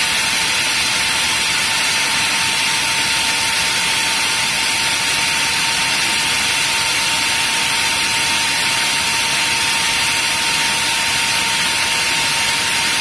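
Sanyo Denki San Ace 120 (9SG1212P1G03) high-speed 120 mm fan running flat out at its rated 12 volts, drawing about 4 amps. It makes a loud, steady rush of air with a constant whine underneath.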